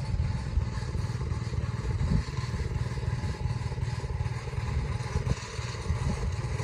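An engine running steadily with a low, pulsing rumble.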